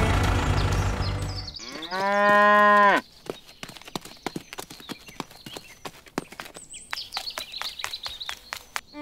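A cow moos once, one long call that rises and then falls, about two seconds in; it is the loudest sound here. Before it, a steady engine-like drone fades out, and after it come faint bird chirps and scattered light clicks.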